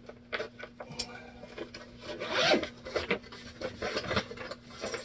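A guitar gig bag being handled, its fabric rubbing and rasping in irregular bursts as its pockets are searched.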